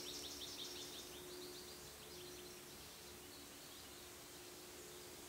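Faint outdoor ambience: a small bird's rapid trill of short falling high notes, fading away over the first two seconds, over a low steady hum.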